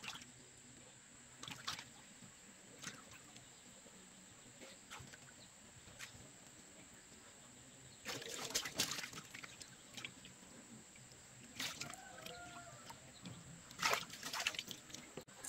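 Water sloshing and splashing in short irregular bursts as an inflated tractor inner tube is pushed under and turned in a concrete tank of water, dunked to find a puncture. The biggest splashes come about eight seconds in and again near the end.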